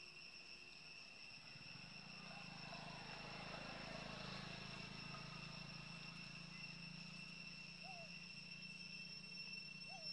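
Faint, steady high-pitched drone of insects, with a few short chirps about two seconds in and twice near the end.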